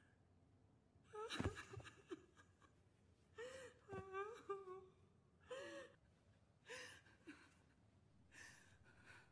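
Quiet, broken whimpering and sobbing from a small child's voice, in short rising-and-falling cries a second or so apart, with a soft thump about a second and a half in.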